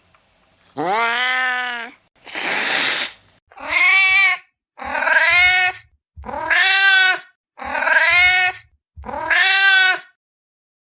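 Kitten meowing over and over: seven drawn-out meows, each about a second long with a short gap between, the third rough and breathy rather than clear.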